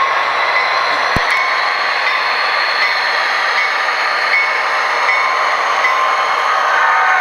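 A train running steadily, with continuous wheel-and-rail noise and one sharp click about a second in.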